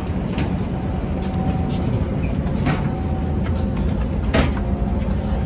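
Steady low rumble of a ferry's machinery, with a faint steady hum above it and scattered knocks and clacks of passengers' footsteps and bags, the loudest knock about four seconds in.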